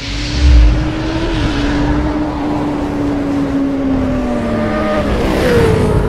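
Motorcycle engine sound effect, revving with its pitch holding and then slowly sagging, with a heavy low boom about half a second in and a rushing whoosh near the end.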